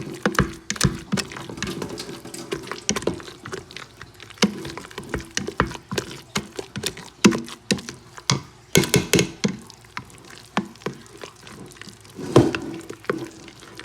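Potatoes being mashed in a pot: an irregular run of knocks, clicks and clatter from the utensil working against the pot, with soft squishing of the potatoes.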